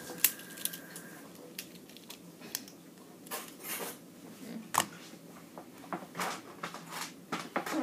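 Plastic construction-toy pieces being handled: a few sharp plastic clicks among softer rustling and clattering.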